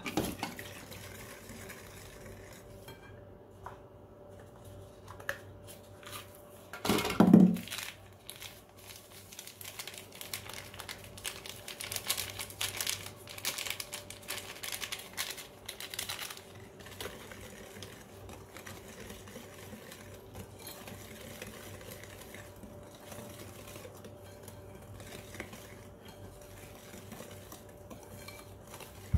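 Wire balloon whisk scraping and clicking against a glass mixing bowl as flour is beaten into a thick wet batter, in quick irregular strokes. There is one louder knock about seven seconds in, and a faint steady hum underneath.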